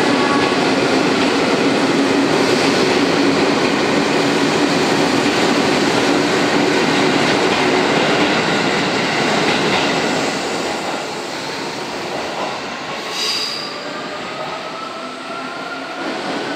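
Seibu 20000-series electric train pulling out of the platform: steady motor whine and rolling noise that fade after about ten seconds as it draws away. A rising whine follows in the second half.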